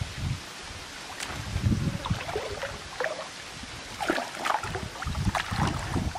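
Water sloshing and splashing in irregular bursts as a person wades waist-deep and reaches into the water around a fishing net.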